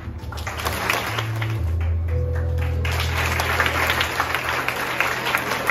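Applause: many hands clapping, building from about half a second in and heaviest in the second half, over background music with sustained low notes.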